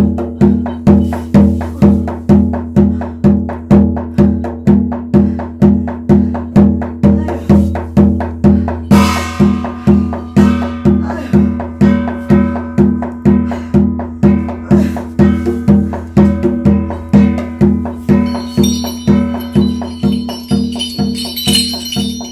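Korean shamanic ritual music: a drum beaten in a steady rhythm of about two strokes a second, each stroke ringing low. High metallic ringing joins in near the end.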